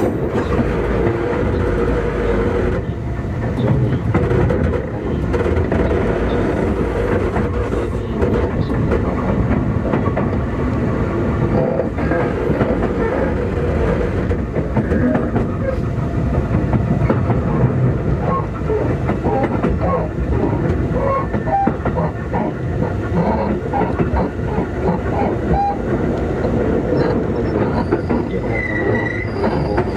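Onboard running sound of a Keikyu 2000 series electric train inside motor car DeHa 2052, running slowly: a steady rumble and motor hum with wheels clacking over rail joints.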